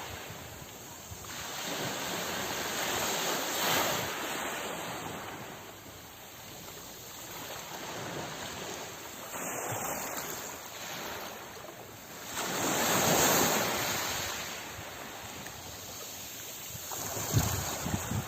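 Sea surf washing in and drawing back, the rush of water swelling and fading every few seconds, with the biggest wave about two-thirds of the way through.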